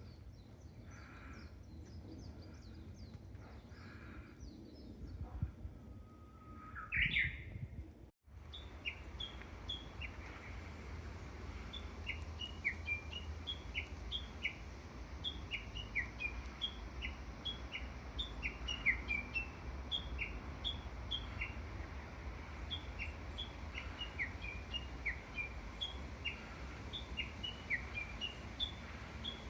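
Wild birds calling. A louder rising call sounds about seven seconds in; after a brief break, many short, high, falling chirps repeat rapidly and overlap until the end.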